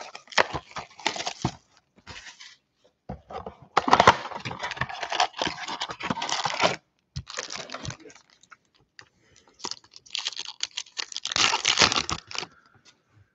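A Panini Optic football card blaster box, thin cardboard, being torn open by hand, then its foil card packs crinkling as they are pulled out: rough tearing and crackling in three bursts with sharp clicks and quiet gaps between.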